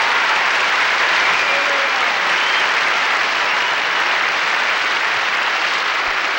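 Large audience applauding, a dense, steady clapping that holds throughout.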